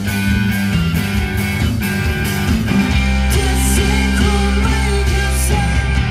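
Rock band playing live: electric guitars and a drum kit, played loud and steady through the stage PA.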